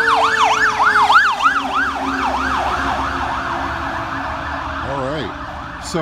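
Fire engine siren on a fast yelp, rising and falling about four times a second, fading away over the first two or three seconds as the truck moves off. A steady rush of passing traffic follows.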